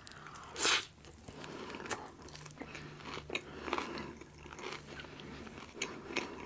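Close-miked chewing and biting of food: irregular small wet clicks and crunches, with a short louder rush of noise just under a second in. A faint steady low hum sits underneath.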